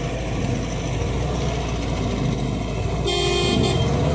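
A vehicle engine running steadily in low rumble, with one short car horn toot about three seconds in.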